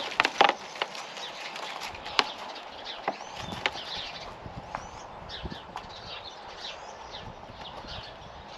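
Scattered sharp clicks and taps as citrus rind is handled and pushed into a plastic bottle, loudest in the first few seconds. Small birds chirp several times in the background in the middle.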